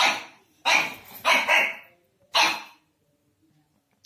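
Pug puppy barking: about five short barks in quick succession over the first two and a half seconds, then stopping.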